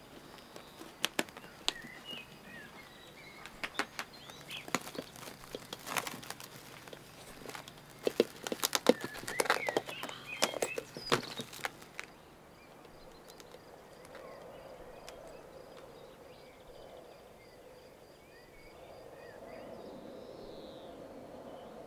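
Plastic cling film crackling and rustling as it is pulled from the roll and stretched over a metal bowl. About twelve seconds in, this gives way to quiet outdoor ambience with birds chirping, one of them giving a fast, even run of high ticks.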